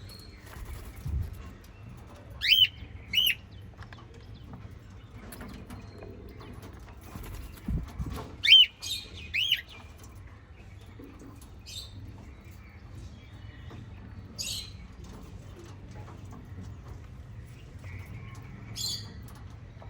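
Pet parrots chirping: two pairs of short rising-and-falling chirps, about two and a half and eight and a half seconds in, with a few softer calls later, and a couple of low thumps.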